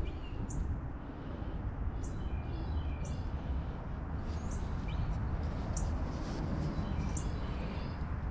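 Birds chirping: short, high calls about once a second over a steady low rumble.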